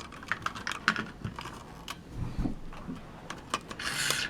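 Hard plastic parts of a toy truck being handled: a string of small, irregular clicks and taps, with a short rustle near the end.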